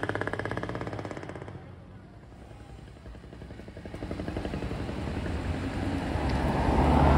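Road vehicles passing: one fades away over the first second or two, then after a quieter moment another approaches, its engine growing to a loud, deep rumble near the end.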